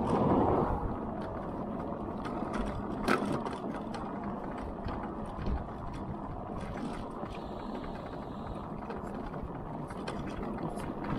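Dayi E-Odin electric motorcycle riding along: steady wind and road noise with scattered small clicks and rattles, a sharper click about three seconds in.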